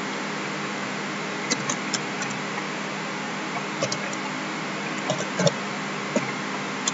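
Computer keyboard keystrokes, a few short clicks at a time with gaps between, over a steady hum and hiss.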